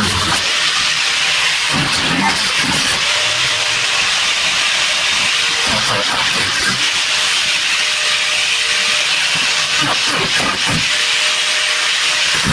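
Angle grinder cutting through the rusted sheet-steel floor and transmission tunnel of a truck cab: a steady, loud hiss of the disc in the metal over a faint even whine from the tool.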